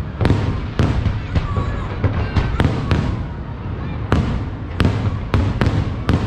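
Aerial fireworks bursting in a quick irregular series of sharp bangs, roughly two a second, over a continuous low rumble.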